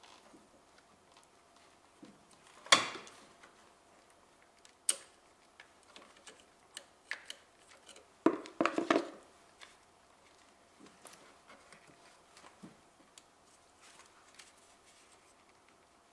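Pliers and hands working at a Honda Civic's fuel-line quick-connector to release it: scattered small clicks and clatters, the sharpest about three seconds in and a short burst of rattling around eight to nine seconds in.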